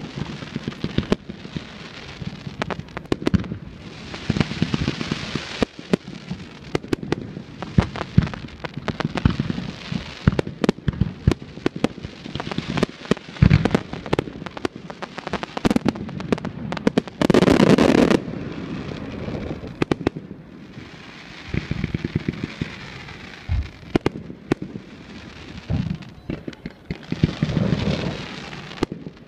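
Fireworks display: a rapid, irregular barrage of bangs and crackles with stretches of hiss between them. The loudest moment is a dense volley lasting about a second, roughly two-thirds of the way through.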